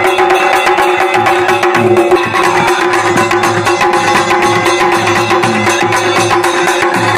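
Kumaoni chhaliya band music: dhol and damau drums beating a fast, dense rhythm under a masakbeen bagpipe's steady drone and melody.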